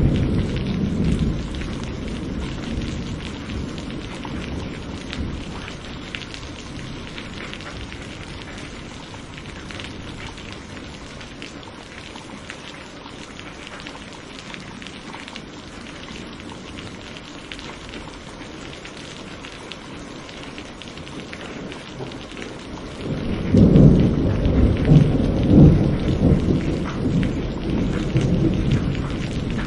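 Thunderstorm: steady rain hissing, with a low thunder rumble dying away over the first few seconds. About 23 seconds in, a loud peal of thunder breaks and rolls on with several swells.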